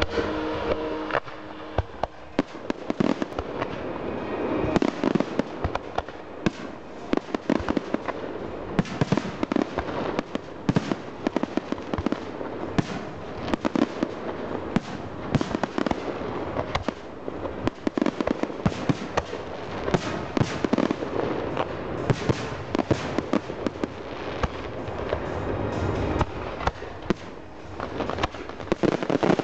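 Fireworks display: a dense, continuous string of aerial shell bursts going off, many bangs every second with crackling between them.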